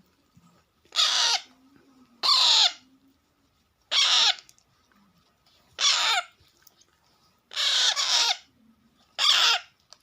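Baby Alexandrine parakeets giving loud, harsh begging calls for food, about six rasping squawks each roughly half a second long, repeated every one and a half to two seconds. They are hungry.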